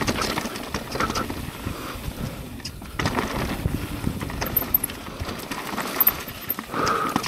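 Mountain bike rolling over a rough dirt trail: tyre noise with a stream of sharp rattling knocks as the bike runs over bumps, briefly quieter about two and a half seconds in.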